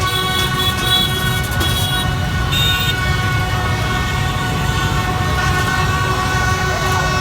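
Dense motorbike traffic rumbling, with several horns sounding steadily and overlapping throughout.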